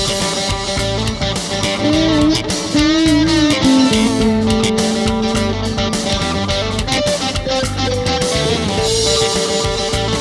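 Rock music: an electric guitar plays a lead line over a steady drum beat, with a wavering, bent note about three seconds in.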